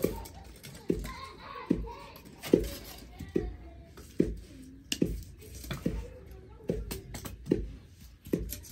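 Dull thuds at a steady, even beat, about one every 0.8 seconds, with faint voices in the background.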